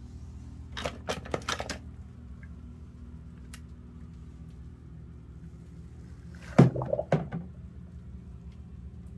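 Die-cast toy cars knocking against each other and a plastic tub: a quick run of sharp clacks about a second in. Later comes the loudest part, a low plunk and slosh as a toy car goes into a tub of soapy water. A steady low hum runs underneath.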